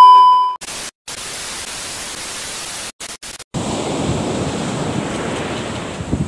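TV 'no signal' transition effect: a loud steady test-tone beep, then TV static hiss that cuts out for brief moments. About three and a half seconds in it gives way to wind on the microphone and surf breaking on a beach.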